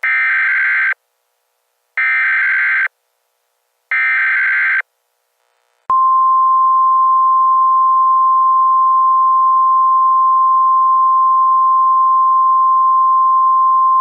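Emergency Alert System SAME header tones: three bursts of the shrill digital data screech, each about a second long and a second apart. About six seconds in, a steady single-pitched alert attention tone starts and holds unbroken, signalling that a spoken emergency message follows.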